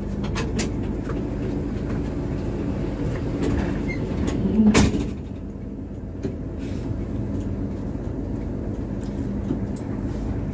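A Hino RK8 coach's diesel engine runs steadily under way over a low road rumble, with one brief louder knock near the middle.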